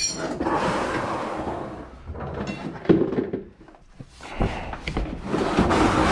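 Rustling handling noise from work at a car's front wheel, with one sharp knock about three seconds in.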